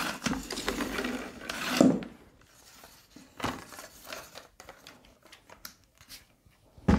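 Plastic rubbing and rustling as a spin mop's microfibre head and handle are worked inside its plastic bucket, busiest in the first two seconds, with a short louder scrape about three and a half seconds in, scattered light clicks, and a sharp knock at the very end.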